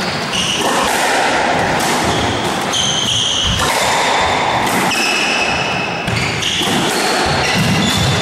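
A squash rally: the ball is struck by the racquets and smacks off the walls and wooden floor again and again, with short high squeaks from court shoes on the wooden floor.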